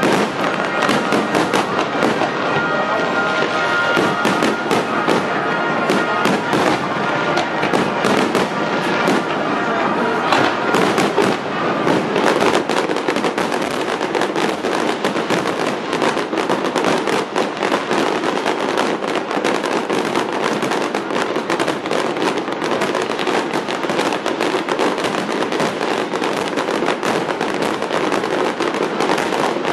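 Fireworks display with shells bursting in rapid, near-continuous succession: a dense run of booms and crackles that never lets up.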